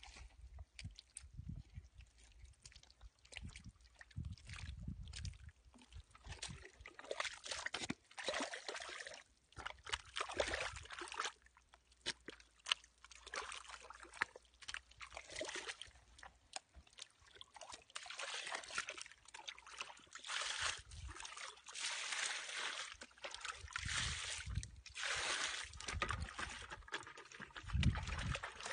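Feet and hands squelching and sloshing through thick wet mud and shallow muddy water, with irregular splashes and trickles of water.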